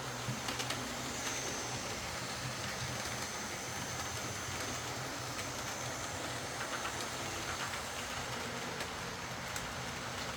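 A Lima Class 55 Deltic OO gauge model locomotive running along its track: a steady motor hum and wheel rumble, with a faint high whine and a few light clicks.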